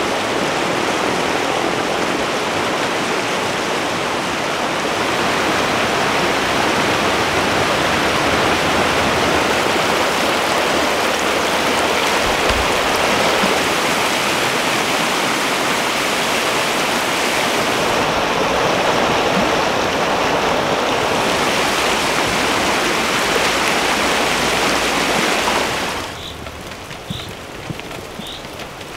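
Shallow Carpathian mountain river rushing over a stony bed, a steady loud rush of water. Near the end it drops away to a quieter background with a few short high chirps.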